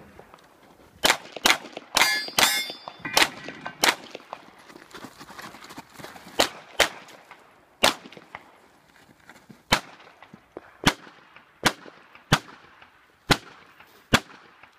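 Tanfoglio pistol firing a stage string of about fifteen shots, fast pairs in the first few seconds, then single shots roughly a second apart. Around two seconds in, a hit steel target rings.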